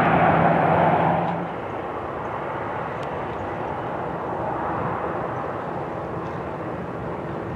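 Jet engines of a Southwest Boeing 737 on its landing rollout, loud with a steady low drone, cutting off about a second and a half in. After that, a quieter, steady jet engine hum from an Airbus A319 moving slowly along the runway at a distance.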